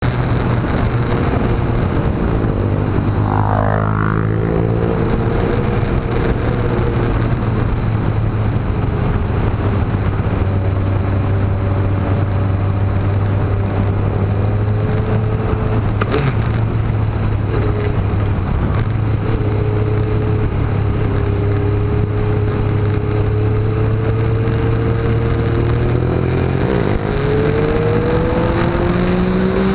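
Motorcycle engine running at road speed, heard from on board with a steady rush of wind and road noise. A quick falling pitch glide comes a few seconds in, and near the end the engine revs climb as it accelerates.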